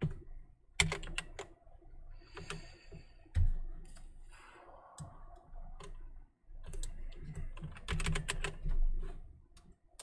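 Computer keyboard being typed on in short bursts of keystrokes, with pauses between the bursts.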